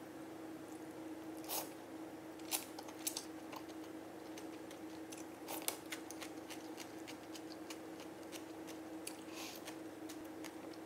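Close-up eating sounds of cold buckwheat noodles: quiet chewing, with a few sharp clicks of chopsticks and a spoon against the bowl, the loudest about a second and a half, two and a half, three and five and a half seconds in. A faint steady hum sits underneath.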